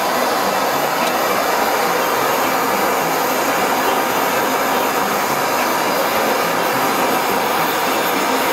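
Gas blowtorch flame running with a steady rushing hiss, held on burning noodles.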